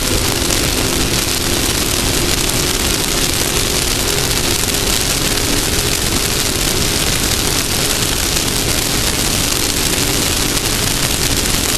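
Off-road race buggy running at a steady pace, its engine note holding even under a loud, constant rush of wind and terrain rumble on the onboard camera microphone.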